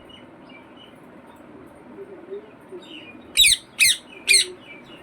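Pet parrot giving soft chirps, then three loud, harsh squawks in quick succession about three and a half seconds in.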